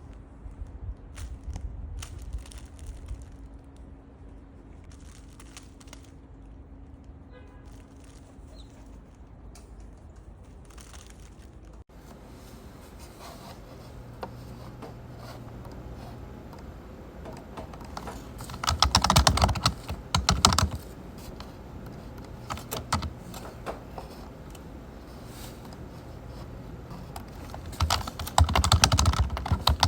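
Typing on a computer keyboard: scattered keystrokes at first, then denser typing after a sudden change about twelve seconds in, with two louder spells of clatter around two-thirds of the way through and near the end.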